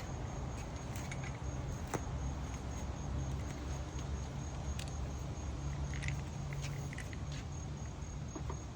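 A few light clicks and clinks of small metal hardware being handled, over a steady low hum and a faint, steady high-pitched whine.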